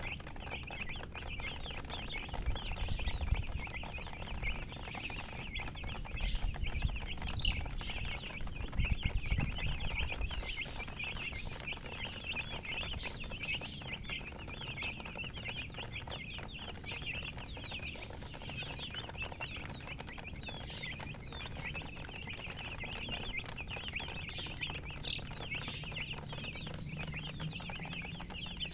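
A brood of baby chicks peeping continuously, many short high chirps overlapping. A low rumble runs underneath during the first third.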